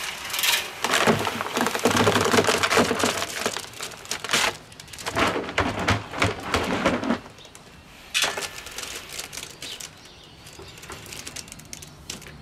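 Wet concrete sliding and splattering out of a tipped Ozito electric cement mixer drum into a plastic tub: a loud, gritty pour for the first seven seconds or so, then quieter scrapes and knocks as the last of it falls out.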